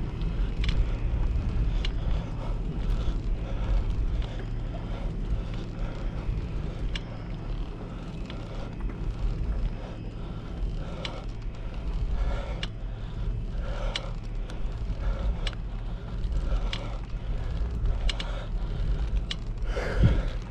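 Wind buffeting the microphone over the rumble of bicycle tyres rolling on coarse chip-seal pavement, with scattered small ticks and a single louder knock near the end.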